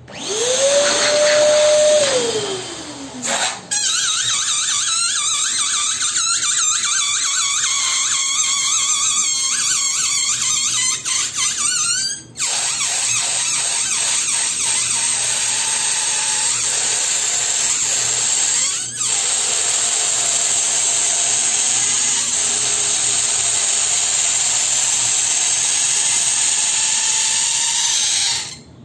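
Electric balloon pump running and blowing air into balloons. Its motor whine rises, holds and falls at the start, and then a steady rush of air follows, briefly interrupted twice.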